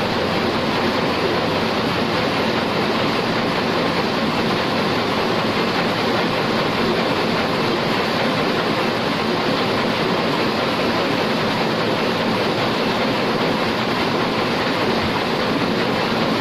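Heidelberg SORMZ two-colour sheet-fed offset printing press running, a loud, steady, even mechanical noise with no pauses.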